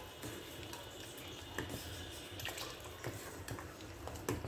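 Faint liquid sounds from a pot of boiling chicken soup as a cornflour-and-water slurry is added and stirred in, with a few light knocks against the pot.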